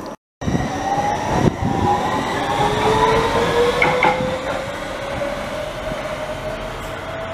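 Copenhagen Metro driverless train (Hitachi Rail Italy Driverless Metro) pulling away from the platform: its traction motors' whine rises slowly in pitch as it gathers speed, over the rumble of wheels on rail. There is a single knock about a second and a half in, and the sound eases off as the train moves away.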